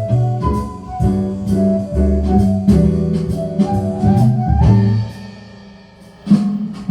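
Music played back from a Sony CDP-X505ES CD player: a band with guitar, bass and drums, easing to a quieter passage about five seconds in before the band comes back in loudly just after six seconds.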